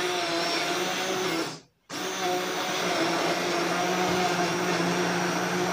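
Electric immersion hand blender running in a glass bowl, blending flour, sugar, milk and eggs into cake batter: a steady motor whine that cuts out briefly about a second and a half in, then runs again.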